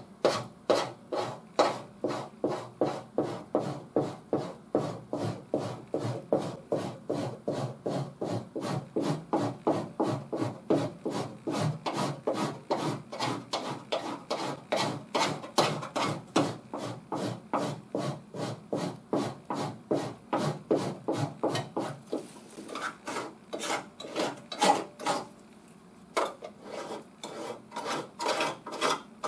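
Stanley Surform cheese-grater blade rasping half-cured body filler, in quick back-and-forth strokes about two to three a second. Near the end the strokes come fewer and lighter, with short pauses.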